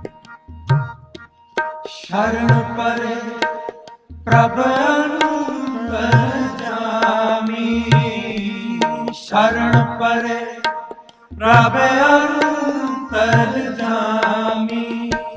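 Sikh kirtan music: tabla keeps a steady cycle, with a deep bass drum stroke about every two seconds, under a wavering, wordless melodic line.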